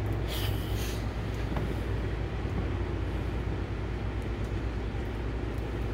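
Steady low mechanical hum, with a brief scratchy rustle about half a second in.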